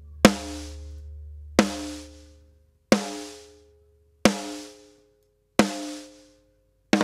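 Soloed drum-kit shells played back through Smash and Grab compression: five single drum hits about 1.3 seconds apart, each ringing out with a pitched tone. A fast tom fill starts right at the end, the toms sitting too loud in the parallel-compressed mix.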